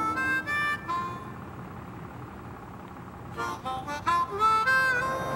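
Background music: a slow solo melody line. A few notes sound at the start, then comes a pause of about two seconds, then a run of sliding notes that settles on a held note near the end.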